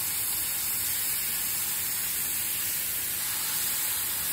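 Chicken breasts frying in a little oil in a nonstick pan, a steady sizzling hiss.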